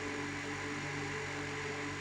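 Excavator running steadily, a constant engine hum with a steady whine above it.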